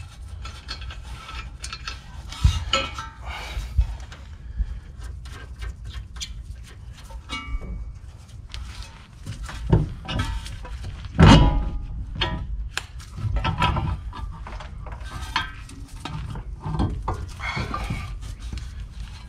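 Irregular metal clanks, knocks and scrapes as a front spindle, with its hub and brake rotor still on, is wiggled loose and slid off the CV axle. The loudest knock comes about eleven seconds in.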